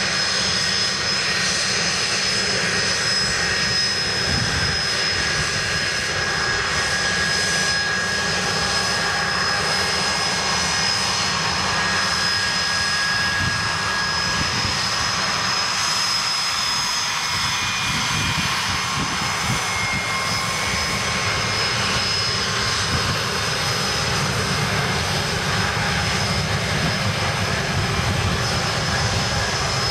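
Twin Rolls-Royce Spey turbofans of a Blackburn Buccaneer S.2 running steadily as the jet taxis: continuous jet noise with high whines that shift in pitch now and then.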